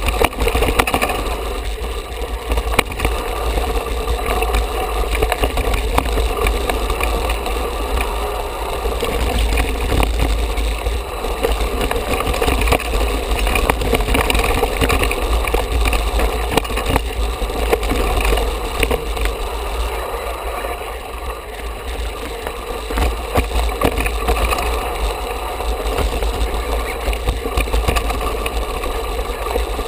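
Mountain bike rattling and clattering over a rocky, loose-stone trail, tyres crunching on the stones, with a steady deep wind rumble on the bike-mounted microphone and many small knocks throughout.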